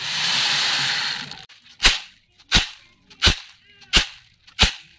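Mung beans sliding off a bamboo winnowing basket (soop) with a steady rushing hiss for about a second and a half. Then come five sharp clatters, roughly 0.7 s apart, as the basket is jerked to winnow the beans.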